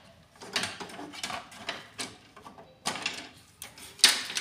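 Plastic panels and parts of an HP LaserJet M525 laser printer being handled and fitted into place: a run of irregular clicks and knocks, the loudest about four seconds in.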